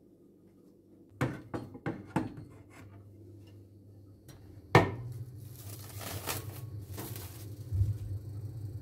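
Kitchen handling sounds: a few light clicks and knocks, then one sharp knock, followed by the crinkle of plastic wrap being handled. A low steady hum comes in a little before the middle.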